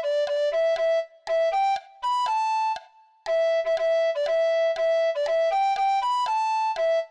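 Alto recorder playing a lively melody in short, separately tongued notes, one note at a time, with a held note about two seconds in followed by a brief pause before the tune carries on.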